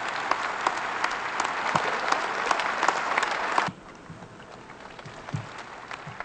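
Crowd applauding with many hands clapping. The applause cuts off suddenly a little over halfway through, leaving a much quieter background with a few scattered claps.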